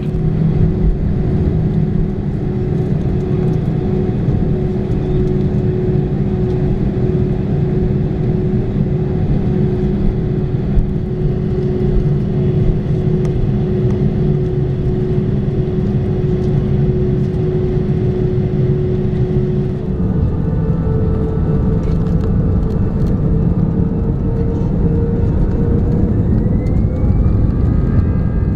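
Cabin noise of an Airbus A320 moving on the ground from the gate: a steady low rumble with a constant hum. About two-thirds of the way in the hum steps to a higher pitch and several thin whines join it, one of them rising near the end.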